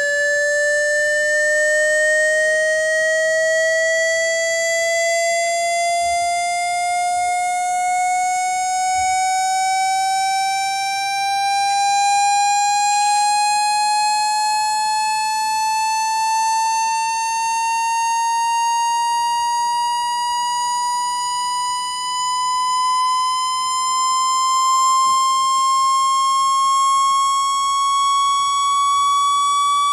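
Synthetic water-ejection tone sweep, played loud to shake water out of a phone or earphone speaker: one continuous tone rising slowly and steadily in pitch, with fainter higher tones riding above it.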